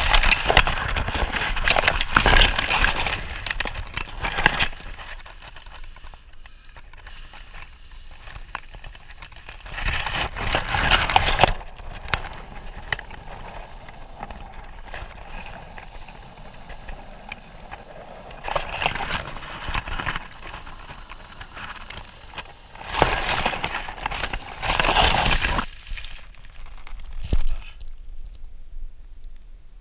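Dry leaves and twigs rustling and crackling as they are handled right against a wrist-mounted camera, in several bursts with quieter stretches between, dying down near the end.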